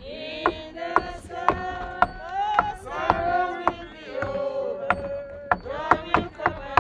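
A group of voices singing a slow hymn, with sharp knocks cutting through about twice a second, unevenly spaced.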